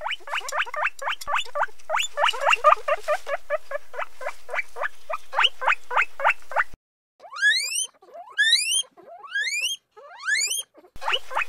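Guinea pig squeaking, which the uploader takes for a happy guinea pig. A fast run of short rising squeaks, about five a second, breaks off abruptly. A few longer rising whistled squeaks with pauses between them follow, then the quick squeaks resume near the end.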